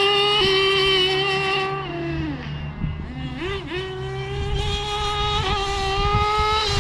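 Nitro engine of a Kyosho Inferno GT2 RC car running at high revs with a steady high-pitched whine. It eases off about two seconds in, gives a quick blip of throttle, then goes back up to speed and holds before dropping again at the end.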